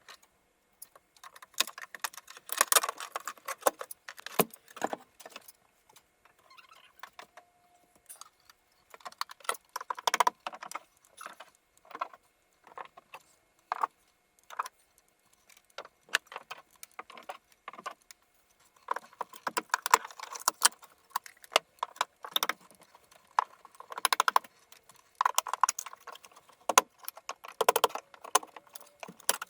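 Irregular clattering and clinking of light, hard pieces being handled during demolition work, in clusters of sharp clicks with short pauses between them.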